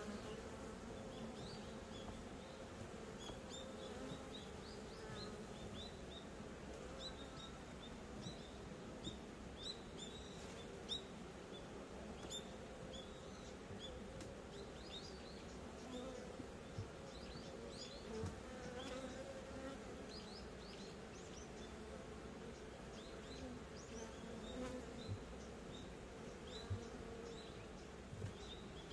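Honeybees humming steadily from the hive as a low, continuous buzz, with faint short high-pitched chirps scattered through it.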